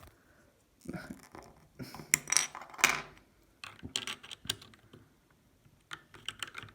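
Plastic keycap being fitted and pressed back onto a brown mechanical switch of a keyboard: scattered clicks and taps in several short clusters.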